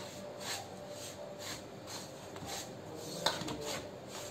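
A hand rubbing oil into dry flour and semolina in a stainless steel bowl: soft rubbing and scraping strokes about twice a second, the fingers brushing the flour against the steel, with one sharper knock on the bowl about three seconds in.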